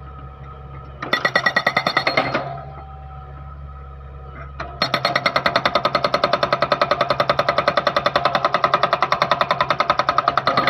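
Okada hydraulic breaker on a Hitachi ZX48U-5A mini excavator hammering rapidly in two bursts: a short one about a second in, then a longer run from about halfway. The excavator's diesel engine runs steadily underneath.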